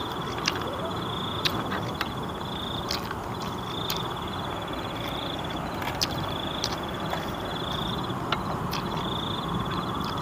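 Night insect trilling in repeated bouts of about one and a half to two seconds, over a steady outdoor night hiss, with scattered sharp light clicks and taps of eating by hand from a plastic plate and a metal pan.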